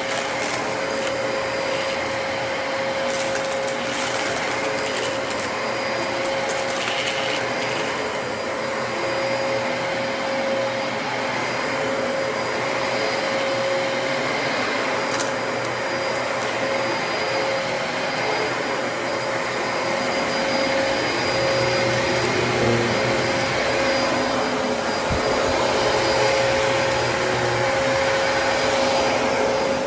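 Dyson DC33 upright vacuum cleaner running steadily, its motor giving a constant whine over the rush of airflow, with a few brief crackles. It gets slightly louder in the second half.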